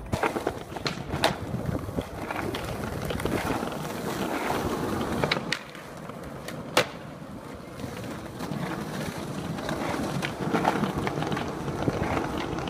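Skateboard wheels rolling over pavement, with sharp clacks of the board's pops and landings; the loudest clack comes about seven seconds in.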